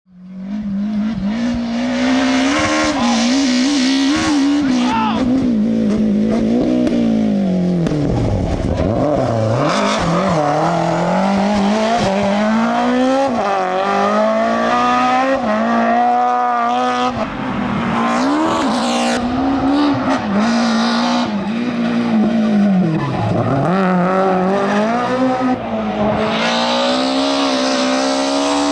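BMW M3 E30 Group A rally car's four-cylinder engine driven hard. It revs high and falls back again and again, with several deep drops in pitch as it slows for corners.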